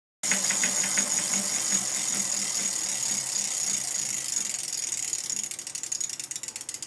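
Bicycle rear hub freewheel clicking as the wheel spins, a fast run of ratchet ticks that slows and spreads out near the end as the wheel coasts down.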